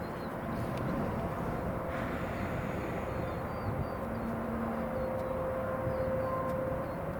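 Steady outdoor background rumble with faint small chirps high over it, no single event standing out.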